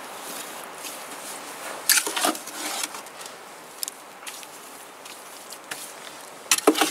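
Scattered scrapes and knocks of bricklaying: a trowel working cement mortar and bricks being set in a wall. The loudest is a short scrape about two seconds in, with a cluster of clicks near the end.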